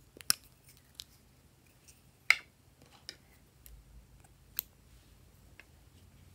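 Scissors snipping through a lipstick, mixed with sharp clicks of a plastic lipstick case being opened and handled. About five distinct clicks and snips, the loudest a little over two seconds in.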